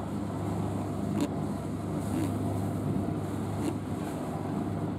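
A boat's engine running steadily at low speed during a mooring manoeuvre, with a few light knocks.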